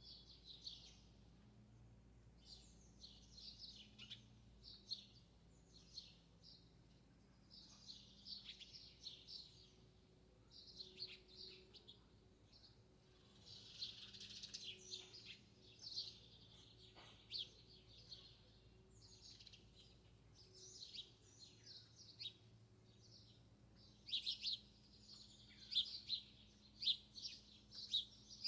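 Small songbirds singing: short high chirping phrases follow one another every second or two, getting louder over the last few seconds.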